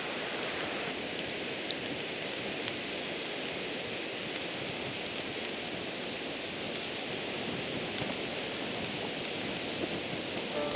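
Ocean surf on a beach: a steady hiss of small waves washing in, with no separate breaks standing out.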